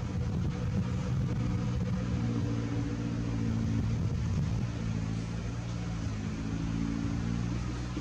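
A motor engine running steadily with a low, even hum.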